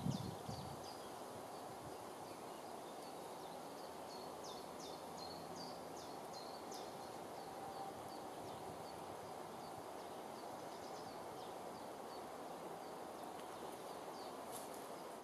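Woodland ambience: small birds singing in runs of short, high chirps over a steady background hiss, with a brief low rustle at the very start.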